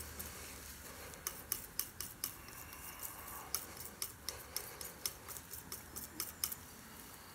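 Palette knife mixing oil paint on a palette: a run of light clicks, about four a second, as the blade taps and presses through the paint. It starts about a second in and stops near the end.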